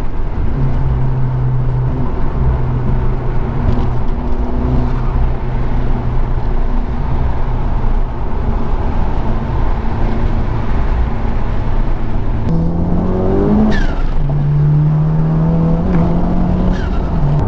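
Honda Civic Type R FK8's turbocharged 2.0-litre four-cylinder heard from inside the cabin at highway speed over steady road and tyre noise. About twelve seconds in, the engine is pushed hard: its pitch climbs, drops at an upshift, and climbs again, with a thin high whine rising alongside each pull.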